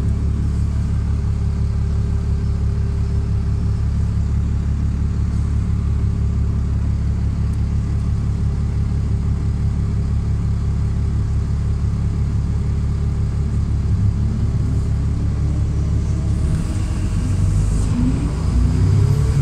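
Diesel bus engine idling steadily while stopped, heard from inside the passenger cabin. About three seconds before the end it pulls away, the engine and transmission note rising in pitch as the bus accelerates.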